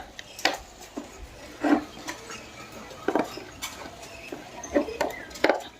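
Scattered clicks and knocks of table fan parts being handled and fitted together while the fan's cover is put back on during reassembly.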